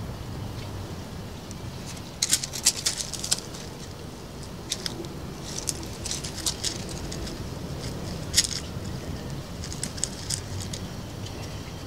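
A cattle dog's claws clicking and tapping on timber decking as it steps, in several short clusters of quick taps, over a steady low rumble.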